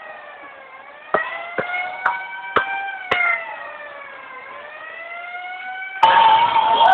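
A siren wailing, its pitch slowly falling and rising, with five sharp knocks about half a second apart under it; near the end loud noisy sound suddenly breaks in over it.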